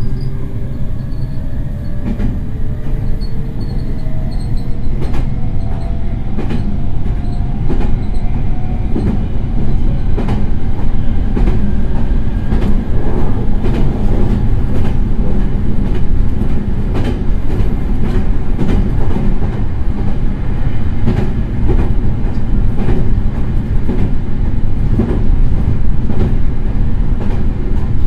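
Meitetsu 3100-series electric train running. A motor whine rises in pitch over the first several seconds as the train accelerates, over a steady rumble with repeated clicks of the wheels over rail joints.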